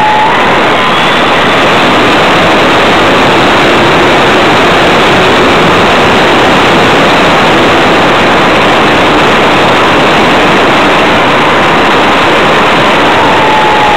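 Radio-controlled Tiger Moth model aircraft's motor and propeller heard through its onboard camera's microphone, with a loud, steady rush of airflow noise and a faint whine whose pitch drops near the end.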